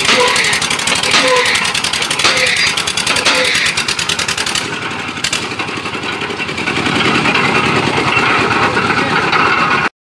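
Engine driving a cable winch on a drilling derrick, running with rapid, even firing; the sound pulses about once a second at first and changes about halfway through. It cuts off abruptly near the end.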